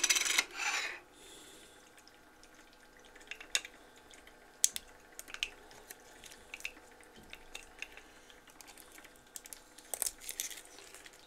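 Protective plastic film rustling as it is handled and peeled off an acrylic coin display case, loudest in the first second. After that come scattered small clicks and taps of the acrylic plates being handled, with a cluster near the end.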